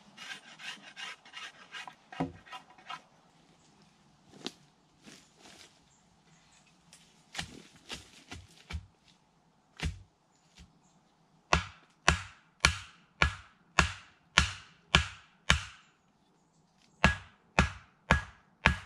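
A blade shaving a wooden pole in quick scraping strokes at first. After that, a hatchet chops into the top of an upright wooden pole: sharp knocks, a few scattered, then a steady run of about two strikes a second that quickens near the end.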